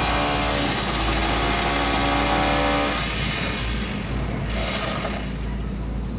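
Heavy construction machine's engine running under load, with a steady mechanical whine. It eases off and quietens about three seconds in.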